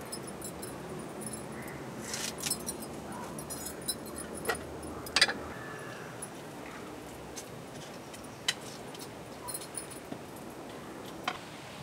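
Glass bangles jingling and light clinks of clay pots and utensils as a cook works over a curry pot, a scatter of small sharp clicks with one louder click about five seconds in, over a steady background hiss.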